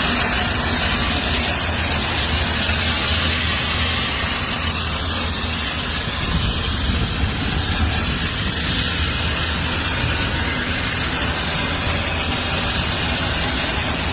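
CNC plasma cutter's torch cutting 1/8-inch steel plate: a steady hiss with a low hum underneath.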